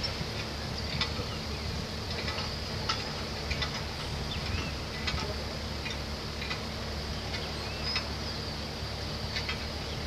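Engine of a boom lift running steadily as a low hum, with faint high chirps and scattered light clicks above it.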